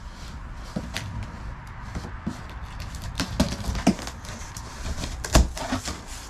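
Scattered knocks, taps and rustles of cardboard packaging and boxed parts being handled, with one louder knock about five seconds in, over a low steady rumble of distant traffic.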